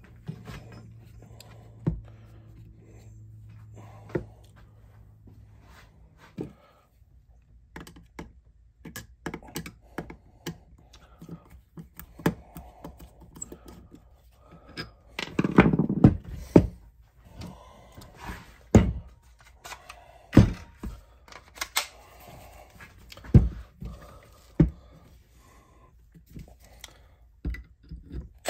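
Scattered knocks, taps and clicks of hand tools and parts being worked on a wooden rifle stock as its metal butt plate is fitted. They are busier and louder about halfway through, followed by several single sharp knocks.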